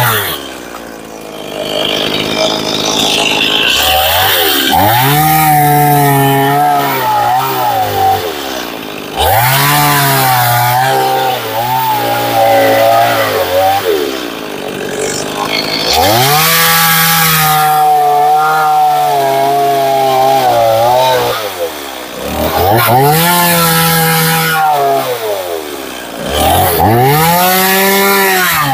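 Stihl chainsaw cutting into an upright pine log in repeated passes. The engine revs up, holds at speed under load through each cut of a few seconds, then drops back toward idle, about five times.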